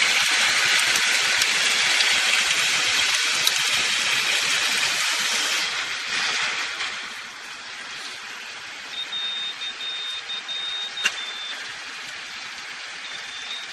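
Heavy-machinery noise: a loud steady hiss that fades away about six seconds in. From about nine seconds in, a high warning tone sounds, held with short breaks, over a quieter background.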